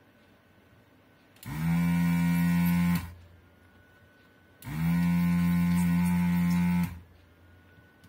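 Vacuum pump of a Pro'sKit SS-331H desoldering gun switched on twice with the trigger, a steady hum lasting about a second and a half, then about two seconds, each time sucking molten solder off the through-hole pins of a tactile switch.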